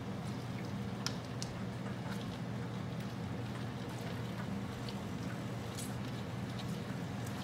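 Wire potato masher crushing hot grapes in a skillet: soft squishing with scattered light clicks of the masher against the pan, over a steady low hum.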